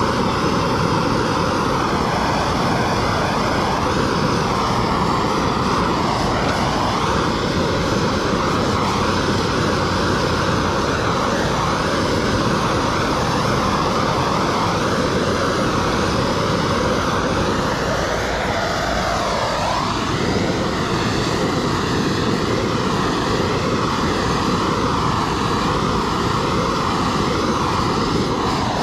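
Hose-fed propane torch burning with a steady blue flame: a continuous loud rushing hiss whose tone shifts slightly as the flame is moved, here heat-shrinking window tint film onto a curved windshield.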